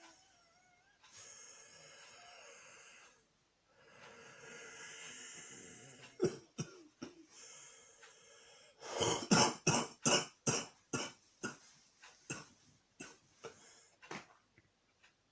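A man with a cold coughing: two long drawn breaths, a few single coughs, then a rapid coughing fit of about a dozen coughs, two or three a second, that tails off.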